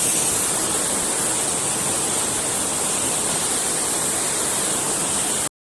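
Steady rush of flowing water, an even hissing noise that starts and stops abruptly.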